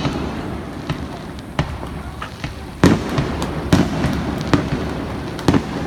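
Fireworks display: a run of sharp bangs from bursting shells, about one a second, the loudest about three seconds in, over a continuous low background.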